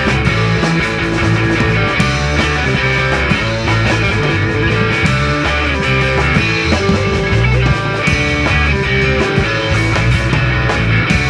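Rock music with electric guitar and drums playing steadily.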